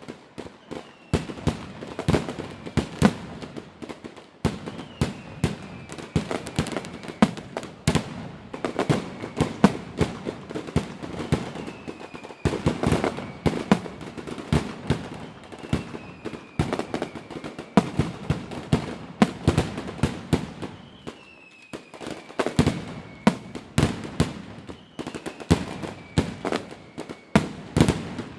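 Fireworks display: a continuous barrage of bangs and crackling, with faint falling whistles every few seconds.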